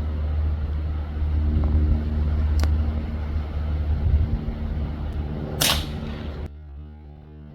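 A .22 Brocock Atomic XR air rifle fires once, a sharp report about two-thirds of the way in, after a faint click, over a steady low rumble. Music cuts in about a second after the shot.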